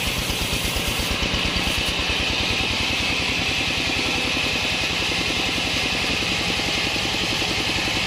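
Log sawmill running, its drive engine giving a fast, steady low throb under the high hiss of the saw cutting through a waru (sea hibiscus) log; the top of the hiss eases about a second in.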